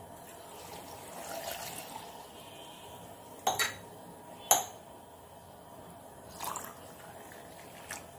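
Water poured from a steel tumbler into a glass jar of sliced carrot, beetroot and spices, with a few sharp clinks partway through.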